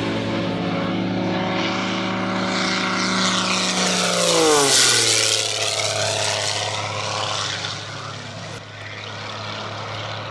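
Propeller airplane flying past close by: its engine and propeller tone holds steady, peaks about four seconds in, then drops sharply in pitch as it passes and fades away.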